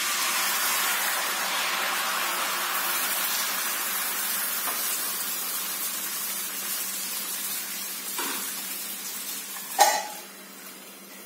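Dosa batter sizzling on a hot griddle. The hiss starts suddenly and slowly fades, and there is one sharp clack near the end.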